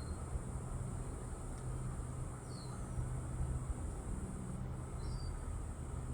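A steady high insect trill runs under a constant low background rumble, with short falling bird chirps once about two and a half seconds in and again about five seconds in.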